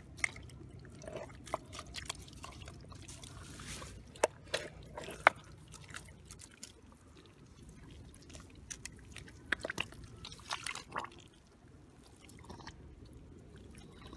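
Scattered small splashes and drips of muddy water as hands work in shallow paddy-field water, with a few sharper splashes around four to five seconds in and again around ten seconds in.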